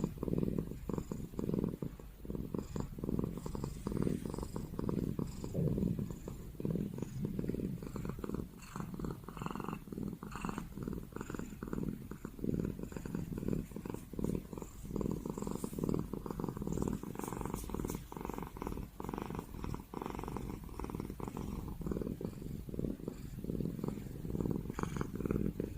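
Chinese Li Hua cat purring steadily, a low rumble.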